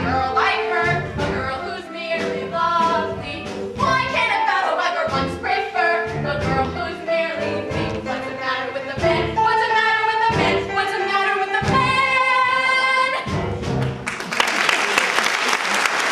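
Stage cast singing a musical number, ending on a long held final note. Near the end, audience applause breaks out.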